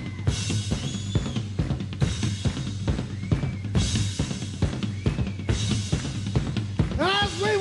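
A rock drum kit played hard in a steady, fast beat, with bass drum and snare strokes over a steady low bass tone. Near the end, voices come back in, singing.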